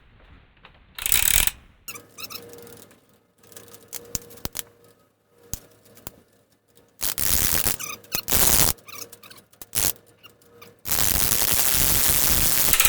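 Vinyl electrical tape being pulled off the roll in several harsh rips, with the longest near the end, as it is wrapped around the frayed end of a steel crane cable. Small clicks and handling knocks come between the rips.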